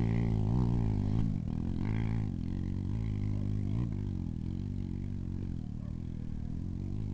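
Dirt bike engine revving up and down as the bike climbs a steep dirt hill, its pitch rising and falling with the throttle. It grows fainter after about a second and a half as the bike moves away up the slope.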